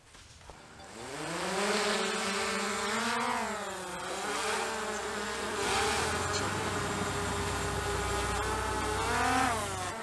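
DJI Mavic Air 2 quadcopter's motors and propellers spinning up to a buzzing whine about half a second in as it lifts off. It then hovers low, its pitch rising and dipping a little, with a last swell and fall near the end.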